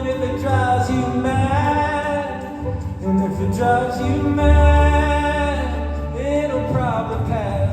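Live performance of a pop song with a symphony orchestra: a wordless melody line glides between held notes over the band and strings, and a deep bass note swells about halfway through.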